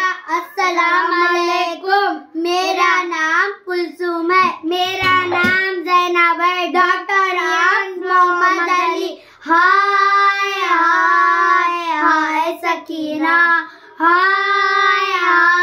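Two young girls singing an Urdu noha (Shia lament) together, unaccompanied, in drawn-out sung phrases with short breaths between them.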